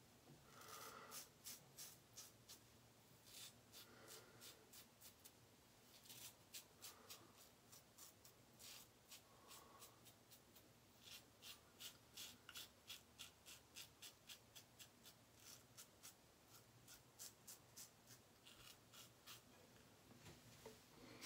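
Blackland Sabre safety razor scraping through lathered stubble in a long series of short, faint strokes, often a couple per second.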